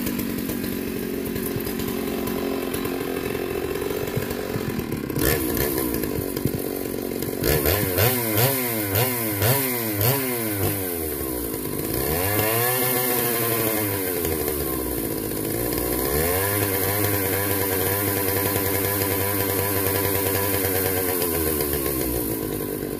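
Chainsaw powerhead on an Alaskan chainsaw mill running. The revs are blipped quickly up and down about twice a second for a few seconds, then rise and fall once more slowly, then hold high and drop near the end.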